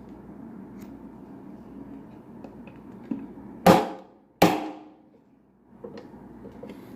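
Two sharp knocks, about two-thirds of a second apart, each ringing out briefly, over a steady low background noise.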